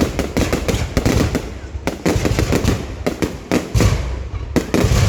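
New Year's Eve fireworks going off: a dense, rapid run of overlapping bangs and crackles, with a few heavier low booms standing out in the second half.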